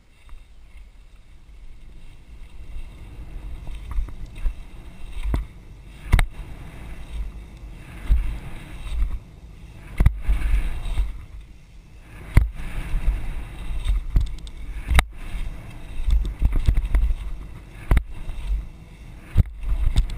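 Wind buffeting the microphone and a dirt-jump bike's tyres rolling fast over packed dirt, with several sharp knocks as the bike lands off jumps.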